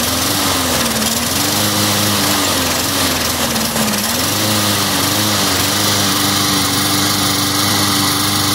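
Small push-mower engine running, its speed sagging and picking back up a few times before settling to a steady run about halfway through. It is running just after brake parts cleaner was sprayed into the intake of a carburetor suspected of gummed jets, on a mower that won't stay running.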